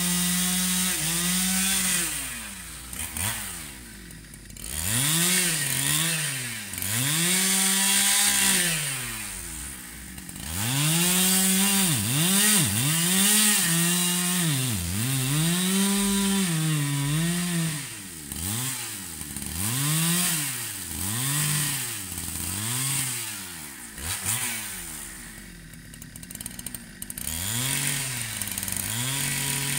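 Husqvarna 395 two-stroke chainsaw cutting rubberwood logs. The engine is revved up to full throttle and drops back to idle again and again, with quieter idling stretches between cuts.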